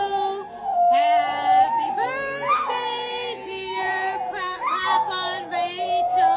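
Pit bull-type dog howling with its head raised, in a run of long, drawn-out howls that bend up and down in pitch.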